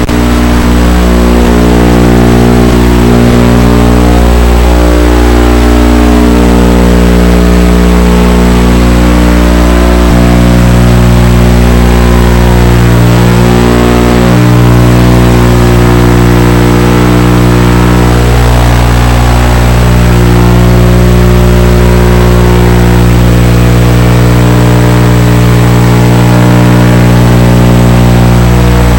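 FPV quadcopter's electric motors and propellers droning loudly and continuously, the pitch stepping up and down as the throttle changes, with a thin steady high whine over it.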